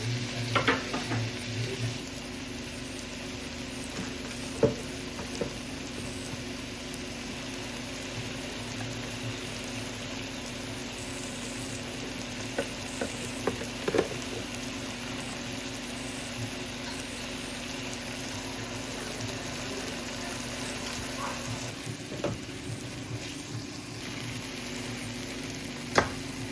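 Food frying in a pan with a steady sizzle and a low hum underneath. A cooking utensil knocks against the pan now and then, most sharply about 4.5, 14 and 26 seconds in.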